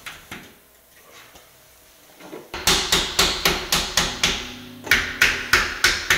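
A hammer rapidly tapping a wooden stair spindle into place at the handrail, about three blows a second. It starts a couple of seconds in and breaks briefly near the middle. Two light knocks come just before.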